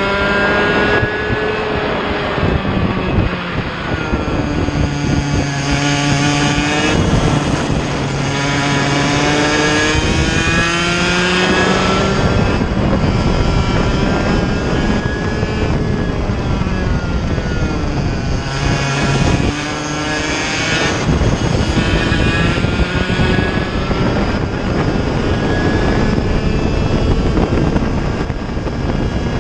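Onboard sound of a Mini Rok kart's 60cc two-stroke engine at racing speed, its pitch climbing as it accelerates out of corners and dropping away each time the driver lifts or brakes. The rise and fall repeats several times, one lap section after another.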